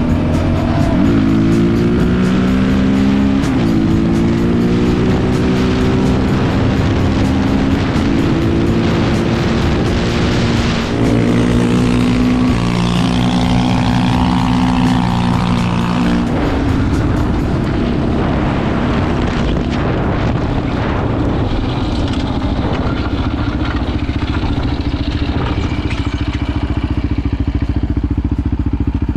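Single-cylinder four-stroke sport quad engine pulling hard under load and shifting up through the gears, its pitch climbing and falling back at each shift over the first half. It then holds a steady pitch at speed.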